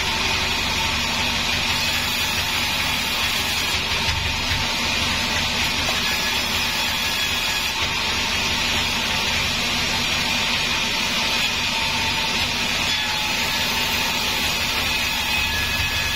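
Large sawmill band saw running steadily as it rips a wooden plank lengthwise.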